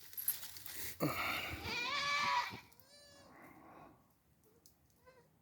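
Goats bleating: a long, wavering bleat about a second in, then a shorter, higher-pitched bleat, and a faint one near the end.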